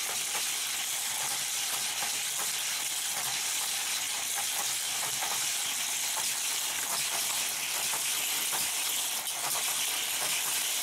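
Several die-cast toy cars circling a plastic track together: a steady whirring hiss with fine rattling clicks of wheels and track joints.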